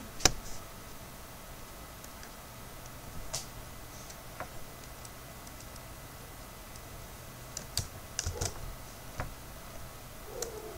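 A few scattered clicks of a computer mouse and keyboard: single clicks spaced a second or more apart, with a quick cluster near the end.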